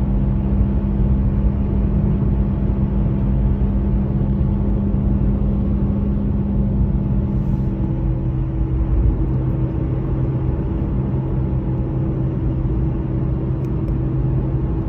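Car driving, heard from inside the cabin: a steady low rumble of engine and road noise with a hum whose pitch shifts about eight seconds in.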